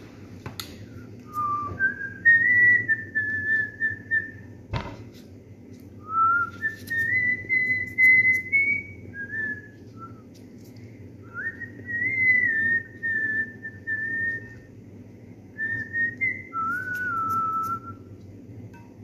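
A person whistling a tune by mouth in five short phrases with pauses between them, the pitch stepping and gliding up and down. A single sharp click comes about five seconds in.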